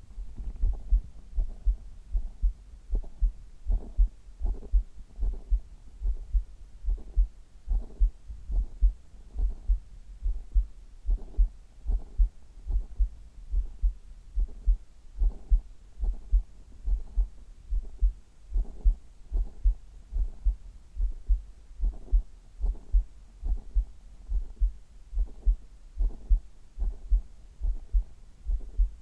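Human heartbeat heard at the chest: a steady, even lub-dub, each beat a pair of deep thumps, a little over one beat a second.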